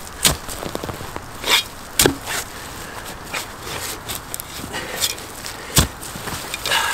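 A steel hand digging tool jabbed and scraped into loose soil and dry leaf litter: a handful of sharp, irregular chops and scrapes, with dirt and leaves rustling in between.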